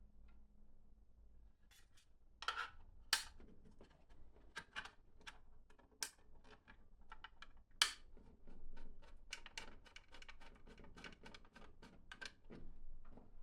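Irregular clicks, taps and rustles of hands handling computer parts, with a few sharper knocks among them.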